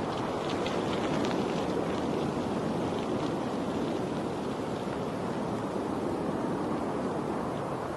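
Steady rushing noise with no tones, with faint short ticks in the first few seconds.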